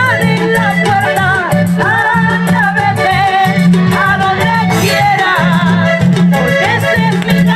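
Live cumbia band playing, with a woman singing the lead vocal through the PA over a repeating bass line and fast percussion.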